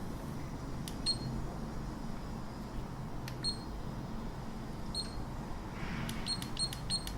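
Button presses on a Hawkeye Firefly 8S action camera as its settings menu is scrolled, each one a small click with a short high beep. A few presses come spaced out, then a quick run of about three a second near the end.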